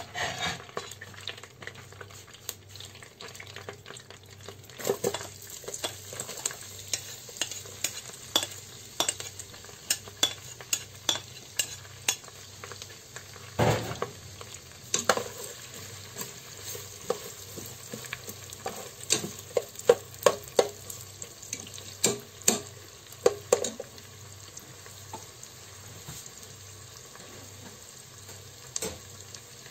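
Sliced onions frying in melted butter in a multicooker's bowl and stirred with a fork, with a run of sharp clicks and taps over a steady sizzle. The clicks crowd together in the middle and thin out near the end.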